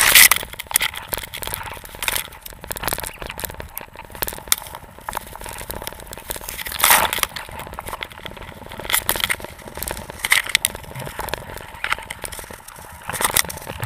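Irregular rustling and crackling handling noise, with louder scrapes every second or two, from material rubbing against the microphone of a covered camera.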